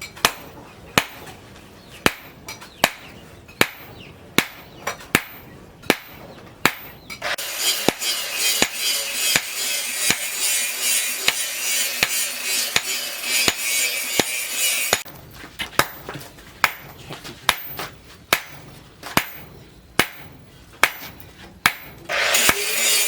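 Hand hammer striking hot rebar steel on an anvil in steady, evenly spaced blows, a little over one a second. About seven seconds in a loud steady hiss comes in under the blows, drops out about halfway through and returns near the end.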